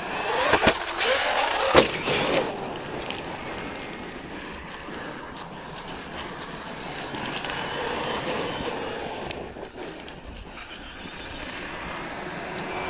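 Traxxas Maxx electric RC monster truck driving at speed: its brushless motor whines up and down with the throttle over the noise of tyres on the ground, with a couple of sharp knocks in the first two seconds. After that the sound is quieter and steadier.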